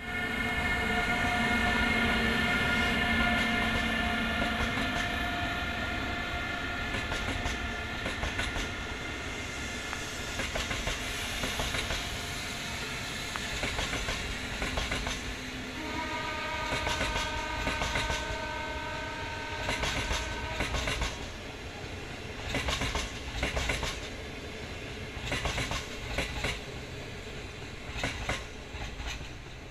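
Laos–China Railway Lane Xang electric multiple unit passing at speed: a steady whine, loudest in the first few seconds and slowly fading as the train draws away. A second steady tone comes in from about 16 to 21 seconds in, under a low rumble and repeated clicks of the wheels over rail joints.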